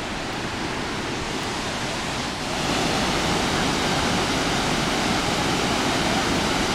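Steady rush of Burney Falls, a tall spring-fed waterfall pouring into its pool, growing louder about two and a half seconds in.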